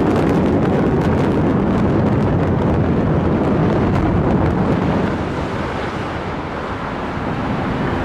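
High-rise tower collapsing in an explosive implosion demolition: a loud, continuous low rumble with small sharp cracks in the first few seconds, easing off a little after about five seconds.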